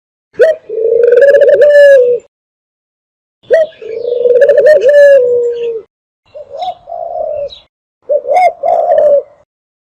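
Dove calling, played loud as a lure call for hunting doves: rolling, purring coos around a low pitch, each phrase a short sharp note followed by a long wavering one, repeated twice, then a few softer shorter coos near the end.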